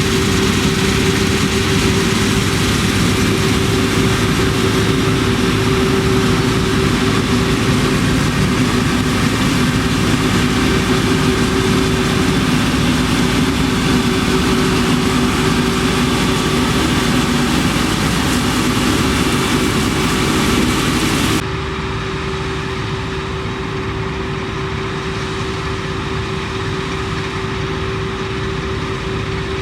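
Harvest machinery running steadily: a loud engine drone with a constant whine through it. About three-quarters of the way in, the sound drops abruptly to a quieter, duller drone.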